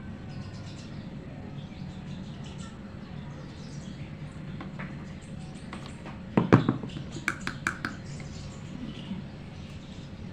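A low steady hum, then about six seconds in a knock followed by a quick run of five or six small sharp clicks, typical of hair-styling tools being handled and clamped.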